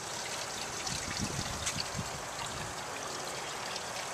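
Water trickling steadily through the PVC pipe runs of a pump-fed hydroponic flood/drain system as it flows from pipe to pipe back down to the bucket.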